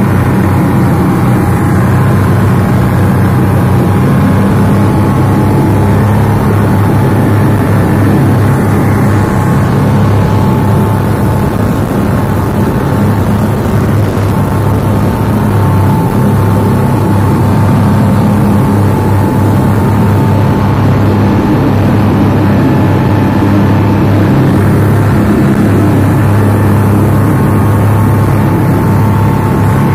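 Twin outboard motors of a passenger speedboat running steadily at high speed: a constant deep drone with a thin high whine over it, above the rush of the wake.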